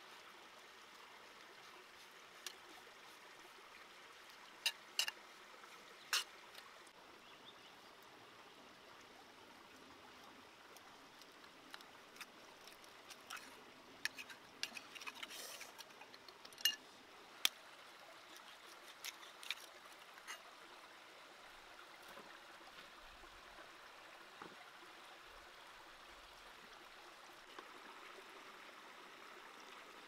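Quiet, steady rush of a stream, with scattered sharp clicks and scrapes of a knife working on a large catfish, most of them bunched in the middle.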